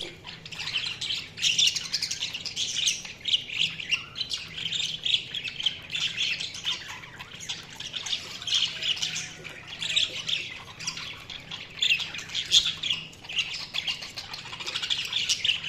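Budgerigars chirping and chattering continuously, a busy stream of short high chirps and squawks from several birds.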